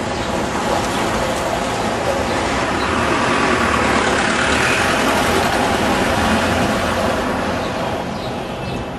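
A motor vehicle driving past: a loud rushing noise that swells to its loudest about halfway through and fades away near the end.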